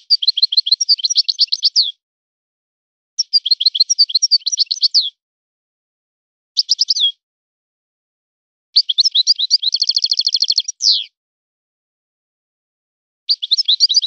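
Moroccan goldfinch singing in five short phrases of quick, twittering high notes with pauses between them. The fourth phrase, about nine seconds in, carries a fast, even trill and ends on a down-slurred note.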